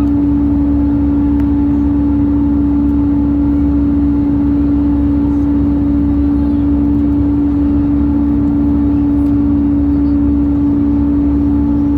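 Airbus A320 cabin noise: a loud, steady hum at a single unchanging pitch over a low rumble. This is the strange noise that alarmed the passengers.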